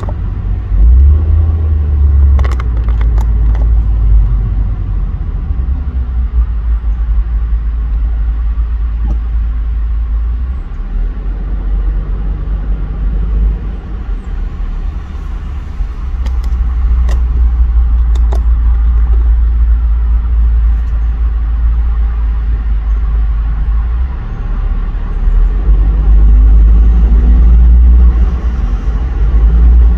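Low, steady rumble of a car heard from inside its cabin, swelling and easing, with a few faint clicks.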